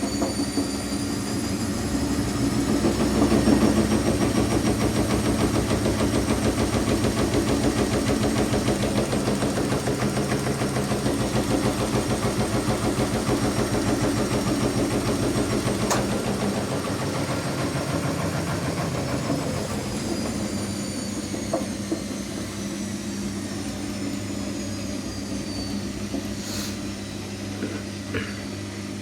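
Washing machine drum on a fast spin, the motor whine climbing to a steady pitch over the first few seconds, holding, then falling as the spin slows down in the second half. A few light clicks sound near the end.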